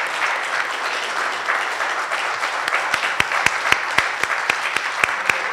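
Audience applauding a winner's announcement. From about halfway through, single sharp claps stand out above the crowd in an even beat of about four a second.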